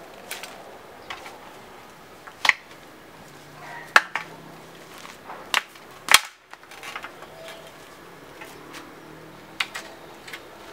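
Scattered sharp knocks and clicks, about half a dozen, from wooden scaffold props being handled and fitted; the loudest come about four and six seconds in.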